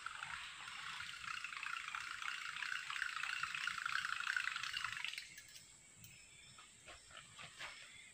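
Buzzbait lure being reeled across the water surface, its spinning blade churning and gurgling. It grows louder as it comes in, then stops abruptly about five seconds in as the lure leaves the water, leaving a few faint ticks.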